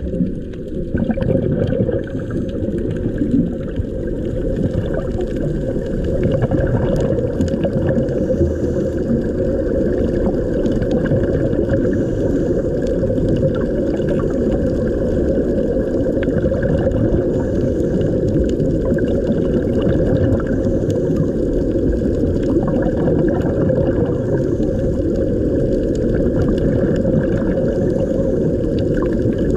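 Underwater sound of water and bubbling, picked up by a camera below the surface: a steady, muffled churning rumble with little high end.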